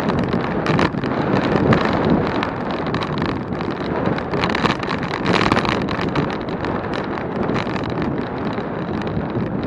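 Wind rushing over the microphone of a bicycle riding at speed, a steady rush with many scattered short clicks and rattles.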